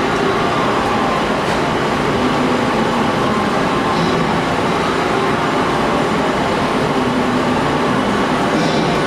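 Metal lathe running steadily, a loud, even machine noise.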